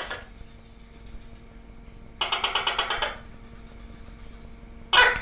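Gecko calling: a rapid train of sharp clicking chirps, about ten a second for just under a second, starts a little after two seconds in, followed near the end by a single loud, short call.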